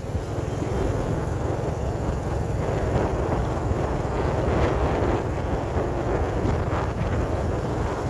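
Steady traffic and road noise of a moving vehicle, with wind rumbling on the microphone.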